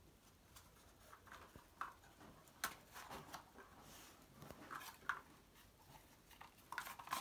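Faint, scattered light taps and soft rustles of a dog nosing and pushing small cardboard toilet-roll tubes about on a carpet while searching for hidden treats.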